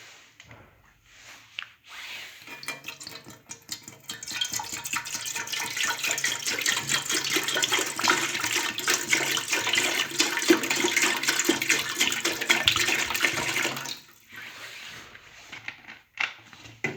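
Water running into a cooking pot, filling it for about twelve seconds before it stops.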